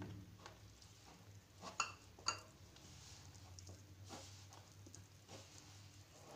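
Faint squishing and rubbing of hands mixing wheat flour with water into dough in a plastic bowl, with two light clinks against the bowl about two seconds in.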